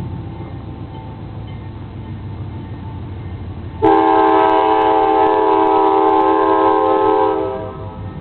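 Diesel freight locomotive rumbling by, then its multi-chime air horn sounds one long chord about four seconds in, held for roughly three and a half seconds before fading off.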